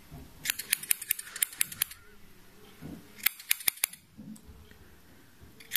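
Small scissors snipping cotton wick, trimming its corners: a quick run of about eight snips, then a shorter run of about five.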